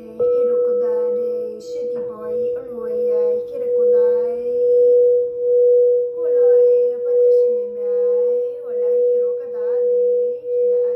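A crystal singing bowl is struck just after the start and rings with one steady tone that swells and fades about once a second, over a lower bowl tone already sounding. A woman's voice sings wordlessly over the bowls, sliding between notes.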